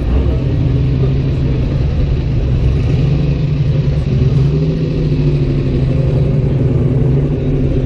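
Engine of a first-generation Chevrolet Camaro running with a steady low note as the car rolls slowly past. The note swells slightly about three seconds in and eases a second or so later.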